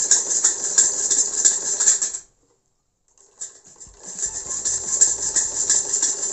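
Hand-cranked domestic sewing machine running, with a fast, even ticking of needle strokes. It stops abruptly about two seconds in and starts again a little over a second later.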